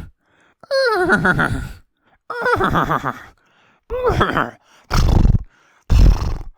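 Whinnying, horse-like neighs: three calls, each sliding down in pitch with a quaver. They are followed by two short, blustery snorts near the end.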